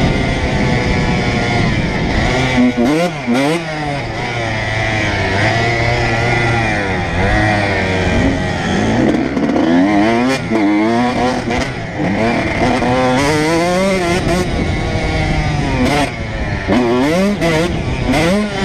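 Honda CR125 two-stroke single-cylinder engine at speed, revving up and dropping back again and again as the bike accelerates, shifts and backs off through the track.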